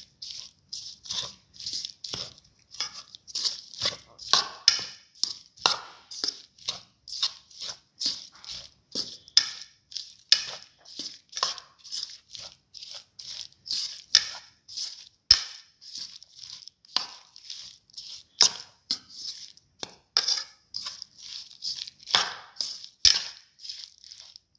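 Spoon stirring a moistened mix of sliced okra and chickpea flour in a bowl: quick, repeated stirring strokes, about two to three a second.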